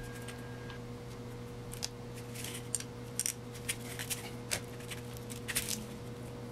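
Small metal parts of an SU carburettor clicking and scraping as it is taken apart by hand: a scatter of light clicks from about two seconds in until near the end, over a steady low electrical hum.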